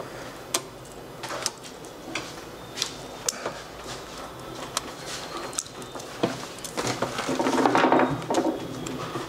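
Light, irregular clicks and taps of an opened smartphone and small tools being handled on a repair bench.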